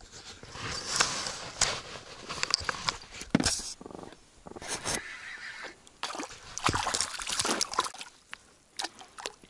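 Paddle strokes splashing and sloshing in the water beside an inflatable packraft, in irregular bursts with sharp drips and clicks.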